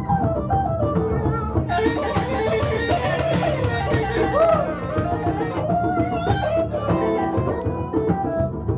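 Live jam-session music led by an electric guitar playing melodic note runs over a band. About two seconds in, the sound turns brighter and fuller for a couple of seconds.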